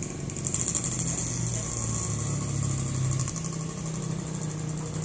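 An engine idling steadily, its low hum wavering slightly in pitch. A high, rapidly pulsing buzz joins about half a second in.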